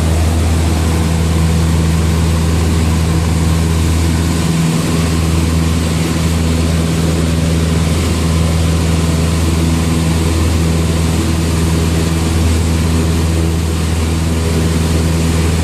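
Cessna 152's four-cylinder Lycoming engine and propeller running steadily at takeoff power, a loud, even drone with a deep hum.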